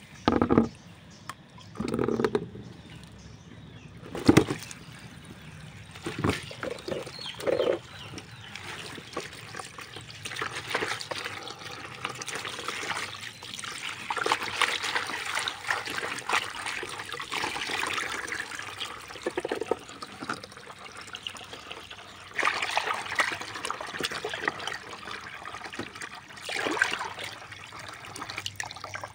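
Hands washing vegetables and leafy greens in a plastic basin of water: irregular sloshing and splashing, with a few sharp knocks of the basin in the first seconds, the loudest about four seconds in. Near the end a stream of water is poured into the basin.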